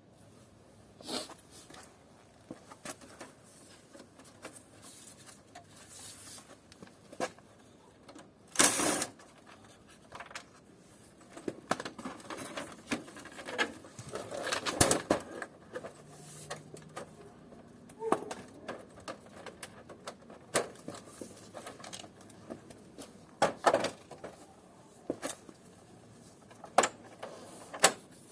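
Scattered clicks, taps and knocks of plastic and metal parts being handled while an air conditioning unit is taken apart, with a louder short scraping burst about nine seconds in.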